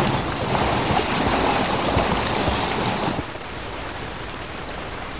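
Rushing river water, a steady noisy rush that drops in level about three seconds in.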